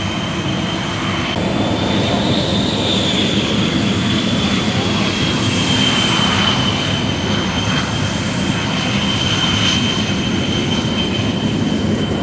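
Sukhoi Su-22's Lyulka AL-21F-3 turbojet running at taxi power: a loud, steady rush with a high whine that rises slightly about two seconds in and then settles.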